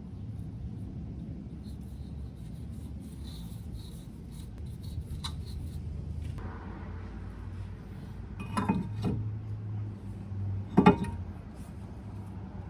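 Metal parts and tools being handled: light clinks and rubbing, then two sharp metallic clanks, the second one the loudest, over a steady low hum.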